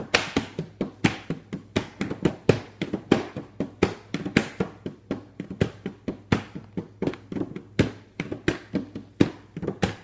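Hand drumming on the 'mint bongos', a fast, steady beat of sharp hand strikes, about five or six a second, played as backing for a spoken poem.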